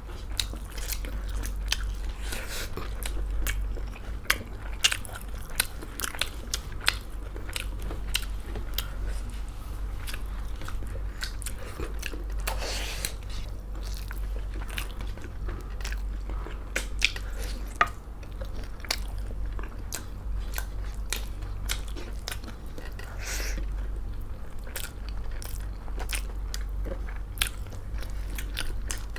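Close-miked eating: people chewing and biting into a meal of pork chilli, dal and rice, with many sharp, irregular mouth clicks and crunching bites.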